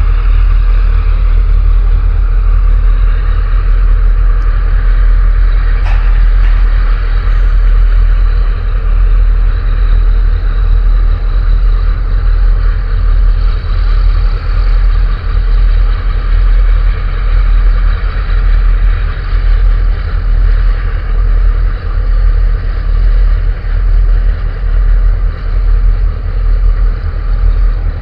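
Steady, loud low rumble with a hiss above it, from the engines of a tug and a large container ship manoeuvring into harbour.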